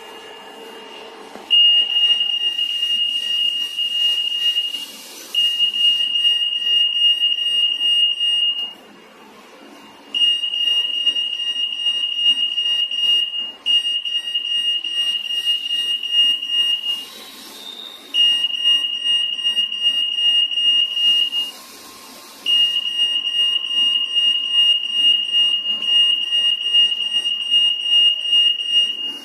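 Acoustic-magnetic EAS anti-theft gate alarm sounding a steady high-pitched tone, the sign of a security tag in the detection field. It starts about a second and a half in and cuts out and starts again several times.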